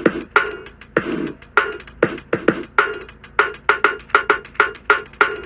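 A person beatboxing: quick mouth clicks and pops mixed with short voiced sounds, several a second in an uneven rhythm.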